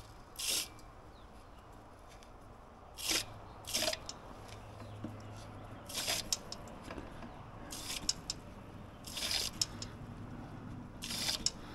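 Short hissing spurts of water from a bleed valve on a pressurised water-supply line, about seven in all, a second or two apart, as the excess pressure is bled off after turning down the water pressure regulator.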